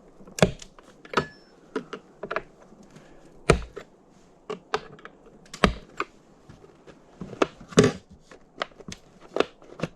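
Irregular clicks and knocks of a Stihl MS 362 chainsaw's top cover being unfastened and lifted off to get at the air filter.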